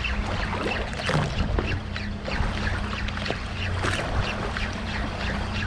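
A boat's engine running with a steady low hum, while water slaps and splashes against the hull in short irregular splashes.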